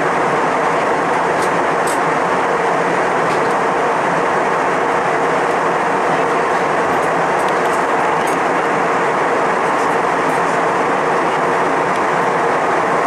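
Steady cabin noise of a jet airliner in cruise: an even rushing of engines and airflow with a faint steady hum underneath.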